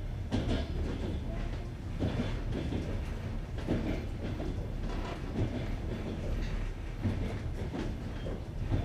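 Passenger train wheels clattering over jointed rail joints, a clickety-clack knock about every second and a half to two seconds over the steady low rumble of the moving coach.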